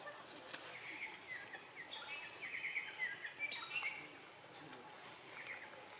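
A string of short, high chirping calls over outdoor background noise, most of them between about one and four seconds in, with a few faint clicks.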